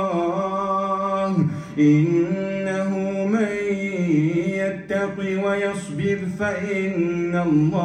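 A man reciting the Quran aloud in a melodic chant, holding long notes that glide and waver, with short breaks for breath about one and a half and five seconds in.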